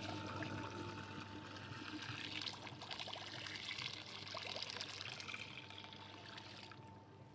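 Rice vinegar being poured in a steady stream, trailing off near the end.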